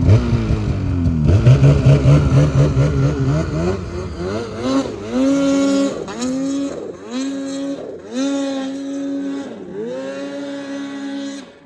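Snowmobile two-stroke engine under way, the throttle let off and opened again several times so the engine note repeatedly dips and climbs back up; it cuts off near the end.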